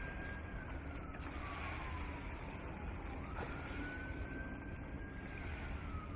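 A siren wailing in slow cycles. Its pitch slides down, jumps back up about three and a half seconds in, holds briefly and starts sliding down again near the end, over a steady low rumble.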